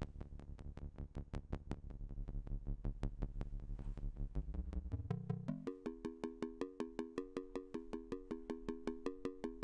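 Buchla modular synthesizer sounding a steady train of sharp, evenly spaced clicks over a low buzzing tone. About five seconds in, the tone jumps up into a higher, repeating two-note pattern. This is the pitch being raised as the function generator's decay is lengthened, so it keeps recycling without ever falling back to zero.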